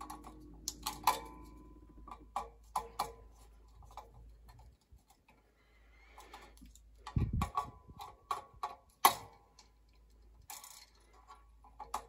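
Irregular small metallic clicks and taps of pliers working wire terminals on a steam boiler's pressuretrol. There is a duller knock about seven seconds in and a sharper click about nine seconds in.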